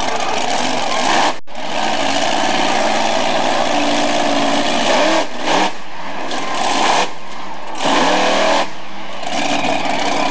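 Monster truck engine revving hard, its pitch rising and falling again and again, with a few short dips in level.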